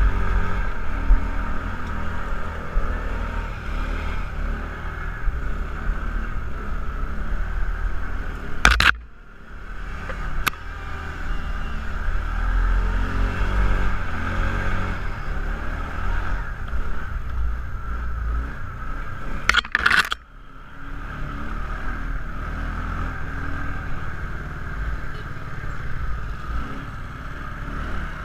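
Kawasaki ATV running while being ridden, a continuous low engine rumble with a steady higher drone over it. Two sharp knocks, about nine and about twenty seconds in, are each followed by a brief dip in the sound.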